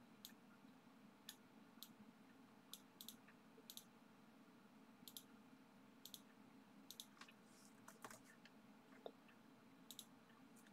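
Faint computer mouse button clicks, irregular and sometimes in quick pairs, over a low steady room hum.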